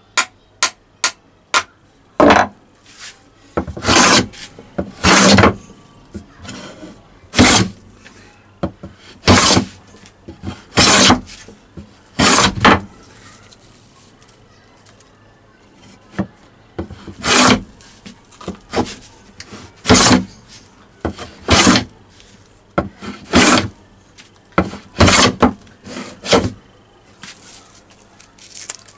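About five quick hammer taps setting the iron blade of a wooden hand plane. Then the plane shaves along a length of wood in about a dozen rasping strokes, one every second and a half to two seconds, with a pause of a few seconds in the middle.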